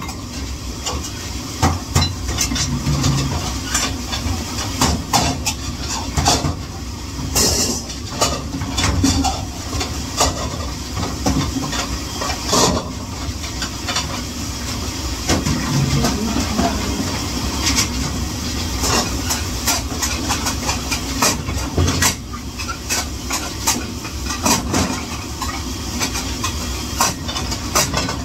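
Dishes and cutlery clattering again and again during dishwashing, over a steady hiss, with a brief louder hiss about seven seconds in.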